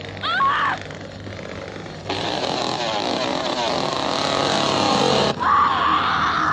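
A short high scream, then a big vehicle rushing past loudly for about three seconds that cuts off abruptly, followed by a long high scream held to the end.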